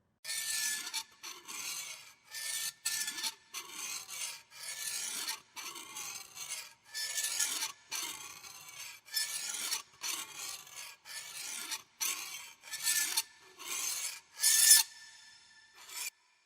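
Repeated rasping scrape strokes, roughly one a second, each a harsh drawn-out rasp; the loudest comes near the end, followed by one short final stroke.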